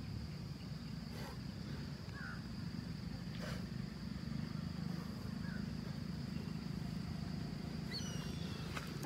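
Outdoor ambience: a steady high-pitched insect drone over a low steady rumble, with a few faint short bird chirps and a couple of brief gliding calls near the end.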